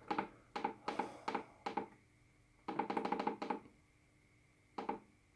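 A string of light, hollow knocks or taps at uneven spacing, with a quick run of them about halfway through.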